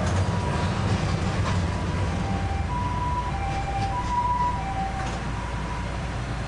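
Ambulance siren sounding a two-tone hi-lo call, high and low notes alternating about every half second, growing louder toward the middle and fading near the end. Under it runs the steady low rumble of the tram's motors and wheels on the rails, heard from inside the tram.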